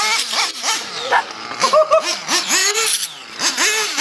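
Small two-stroke nitro glow engine (O.S. .21) of a radio-controlled monster truck revving up and down over and over, its high whine rising and falling in pitch as the truck is throttled on and off.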